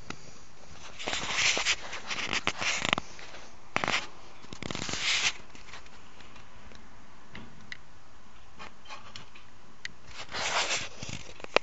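Hands working a licence plate and small metal screws onto a scooter's plate mount: irregular bursts of rubbing and scraping with a few light clicks.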